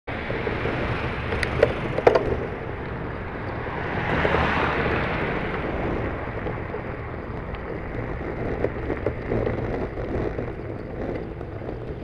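Wind buffeting a bicycle-mounted camera's microphone over steady road rumble while riding, with the rush of oncoming traffic (a lorry and cars) swelling as it passes about four to five seconds in. A few sharp knocks come near two seconds in.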